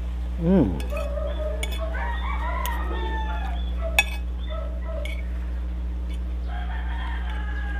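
Rooster crowing from about one and a half to three and a half seconds in, and again more faintly near the end. A short, loud falling call comes about half a second in, and a spoon clicks once against a china plate about four seconds in.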